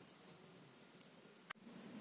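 Near silence: faint room hiss with a few soft clicks, the sharpest about one and a half seconds in.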